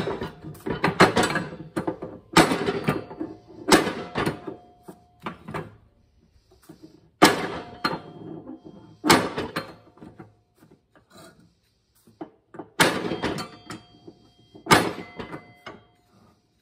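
A steel pry bar clanks against a mower deck spindle pulley and the steel deck as a pulley seized on its splined spindle shaft is levered loose. There are about eight sharp metal clanks at irregular gaps of one to a few seconds, some ringing briefly, with lighter knocks between.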